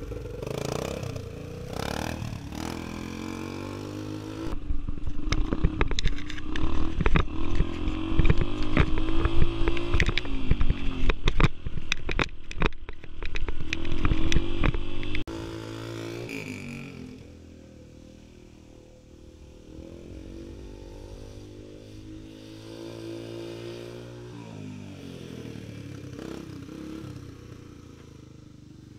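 Dirt bike engine running and revving, its pitch rising and falling as the rider accelerates and changes gear. For about the first half it is close and loud, with heavy clattering and knocks from riding over rough ground. After a sudden cut it is fainter, swelling a couple of times as the bike passes.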